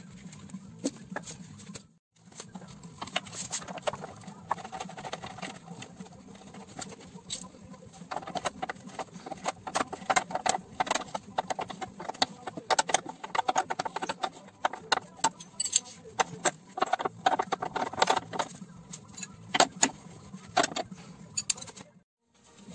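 Metal tools and parts clinking and clicking in quick, irregular strokes with a light metallic ring, thickening into a busy clatter from about eight seconds in, over a steady low hum. The sound drops out briefly about two seconds in and again just before the end.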